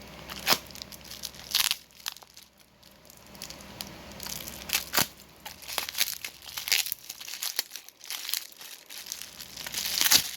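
Packing wrap being crumpled and torn by hand to get an item out of a package: irregular crinkling and crackling, with louder crunches every second or two.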